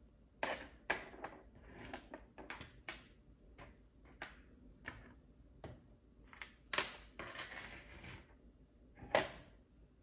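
Small metal parts of a dismantled GFCI outlet (screws, springs, brass contact strips) being picked up and set down on a tabletop: a string of light, irregular clicks and clinks, two sharper ones about seven and nine seconds in.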